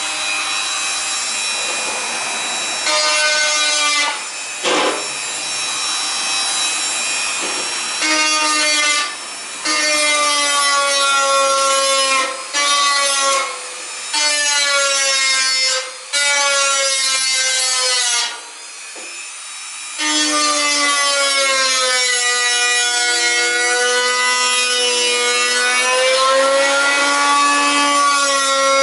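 Dremel rotary tool with an aluminium oxide grinding stone engraving a hard surface: a high grinding whine of several pitches that dip and shift as the bit bears down, broken by several short pauses where it is lifted off.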